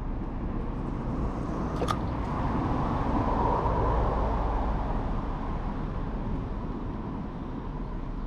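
Steady road-traffic noise that swells as a vehicle passes about halfway through and then fades, with one sharp click about two seconds in.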